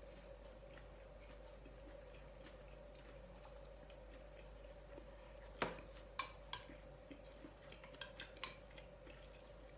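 Metal spoon clinking against a glass bowl of congee: a run of sharp clinks about halfway through, the first among the loudest, with several more over the next three seconds. A faint steady hum sits underneath.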